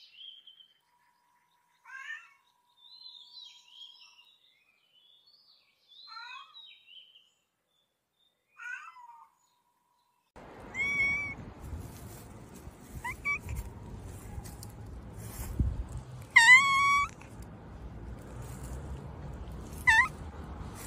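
Domestic cats meowing: short, thin, high mews through the first half, then, over a steady background hiss that starts suddenly about halfway, louder meows, the longest and loudest about two-thirds of the way through.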